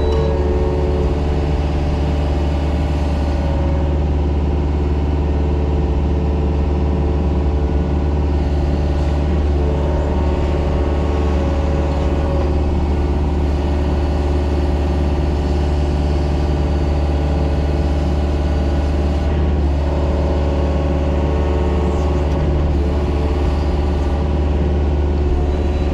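Mini excavator's diesel engine running steadily under work, a constant low drone whose tone shifts slightly a few times.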